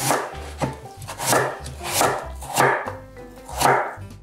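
Chef's knife cutting through a block of raw Korean radish and hitting a wooden cutting board: about six cuts, evenly spaced, each a crisp slice ending in a knock on the board.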